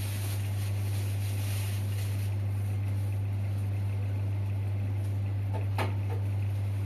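Steady low electrical hum, with a sharp click near the end as a small toy car is set down on the metal tray of a shop scale.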